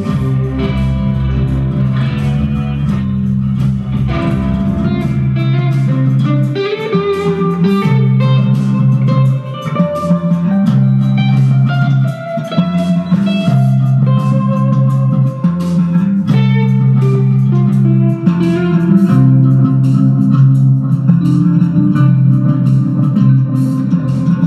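Instrumental psychedelic jam: electric guitar playing improvised lead lines with many quick picked notes over sustained electric bass notes. The deepest bass drops away about five seconds in.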